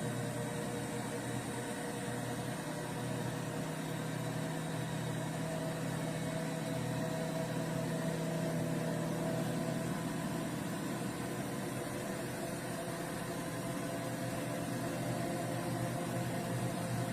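Front-loading washing machine running, a steady motor hum with a few fixed tones that does not rise or fall.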